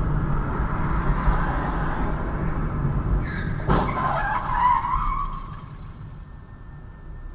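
A car collision ahead: one sharp bang a little past the middle, with tyres screeching from just before it to about two seconds after. Under it runs steady road noise heard from inside the car.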